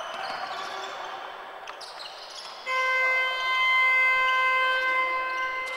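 Basketball arena horn sounding one steady, pitched blast of about three seconds, starting suddenly a little under halfway through. Before it come the knocks of the ball and shoes and the hum of the gym hall.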